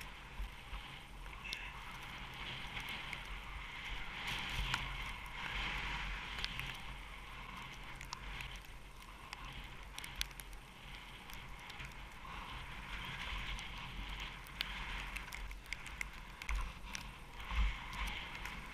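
Skis hissing through deep powder snow, faint and steady, with wind rumbling on the microphone and scattered small clicks and knocks.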